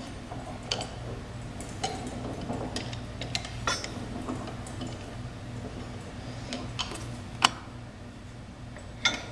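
Metal pump parts being handled and set down: scattered light clicks and clinks of steel and bronze, with a sharper knock about seven and a half seconds in and two more near the end, over a steady low hum.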